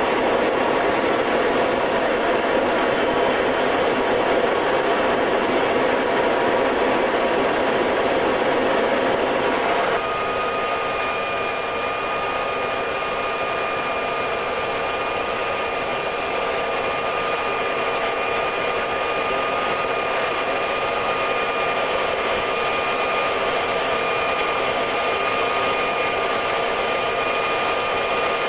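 Short Tucano's Garrett TPE331 turboprop and airflow in flight, a loud, steady drone. About ten seconds in the sound changes abruptly and a steady high whine stands out above it.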